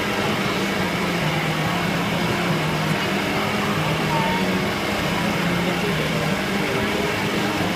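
Cotton candy machine running, its motor and spinning head giving a steady hum.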